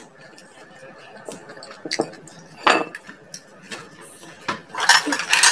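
Cutlery clinking against a ceramic bowl: a few scattered taps, then a quick run of louder clinks near the end, as a spoon and chopsticks are handled over the bowl of leftover coconut-milk sauce.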